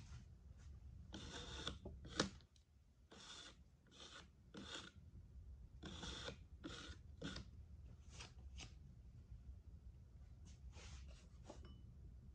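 A potter's metal rib scraping in short, irregular strokes, with one sharp click about two seconds in.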